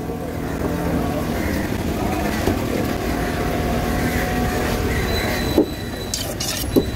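A motor vehicle's engine running close by, steady, then falling away about five and a half seconds in. Near the end, two sharp knocks of a knife blade striking a wooden cutting board.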